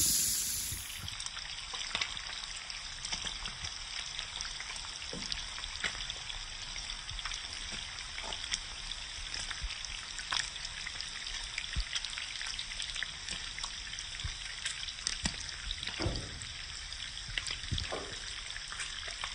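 Bacon frying on a hot flat-top gas griddle: a steady sizzle of spitting grease, with scattered sharp pops, a few of them louder near the end.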